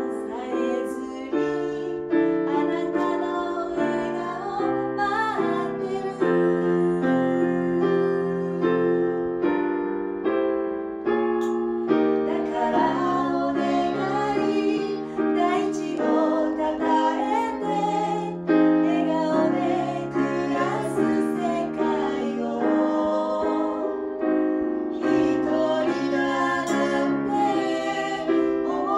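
Electronic keyboard in a piano voice playing a slow, gentle instrumental passage: held chords changing every second or two under a melody line.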